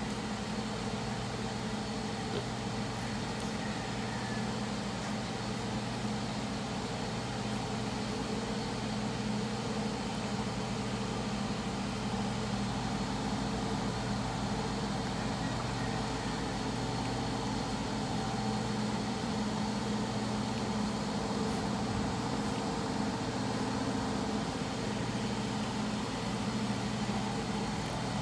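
A steady, unchanging mechanical hum of a running motor, holding the same pitch throughout.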